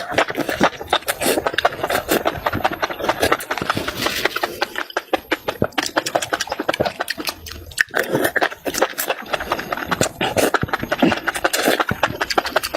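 Close-miked mouth sounds of a person eating: chewing with a dense run of wet clicks and smacks, and a short noisy stretch about four seconds in.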